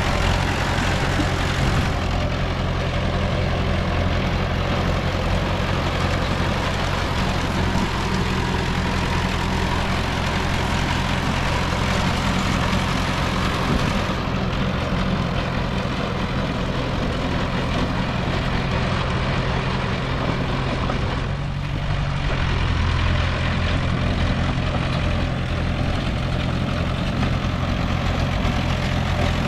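Heavy diesel engine of earthmoving machinery running steadily, with a low, even drone, dipping briefly about three-quarters of the way through before it picks up again.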